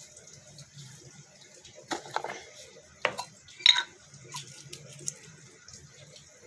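Several light clinks and taps of kitchenware, scattered over a few seconds, the sharpest about three and a half seconds in with a brief ring.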